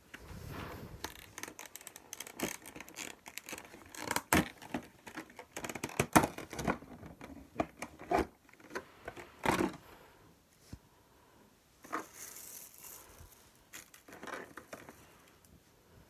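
Clear plastic packaging crinkling and crackling as it is pulled off a diecast model airliner and out of its plastic tray, with sharp clicks and rustles. The sounds come thickly for about ten seconds, then thin out into occasional rustles.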